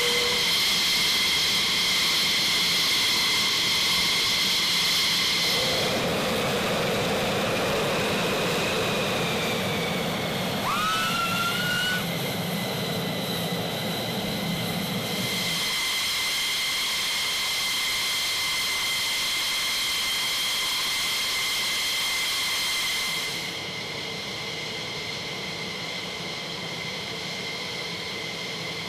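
Jet turbine whine on an airfield flight line: steady high-pitched tones over a rushing hiss, with a short rising whine about eleven seconds in. The sound shifts abruptly several times.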